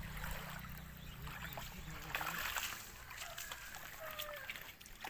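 Shallow water splashing and sloshing under bare feet wading and walking on a wet, muddy shore, with faint voices in the background.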